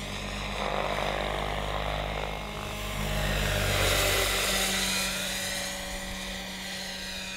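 Large electric-powered Vario SA-341/342 Gazelle scale model helicopter in flight: the whine of the electric drive with the chop of the rotor blades, growing louder to a peak about four seconds in as it passes close, then easing off as it flies away.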